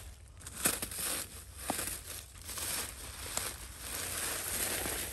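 Plastic bags and loose trash crinkling and rustling as they are picked through by hand, in short irregular bursts with a few light clicks.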